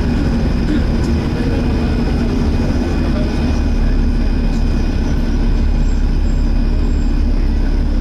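Volvo B7TL double-decker bus running on the move, heard from inside: a steady low engine and road drone with a faint steady high whine from the engine's cooling fan, the sound enthusiasts call 'hoovering'.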